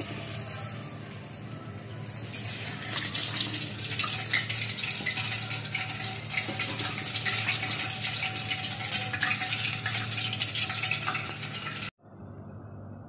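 Gulab jamun deep-frying in hot oil in a pan: a steady sizzle with crackles that grows louder about two seconds in and cuts off abruptly near the end.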